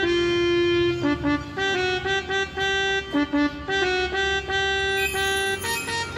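Electronic keyboard playing a slow melody one note at a time, with long held notes between runs of short quick ones.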